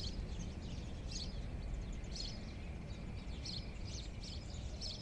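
Short, high chirps of a small bird, repeated every half second to a second, over a steady low background rumble.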